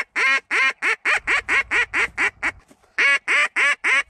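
Hand-blown duck call sounding a run of loud quacks, about four a second, that taper off, then a second run starting about three seconds in, calling to ducks circling the decoys.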